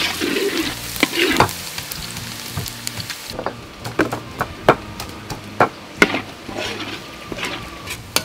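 Chopped garlic sizzling in a hot steel wok as it is stirred with a ladle. About three seconds in the frying cuts off and gives way to irregular sharp knocks of a pestle pounding in a stone mortar.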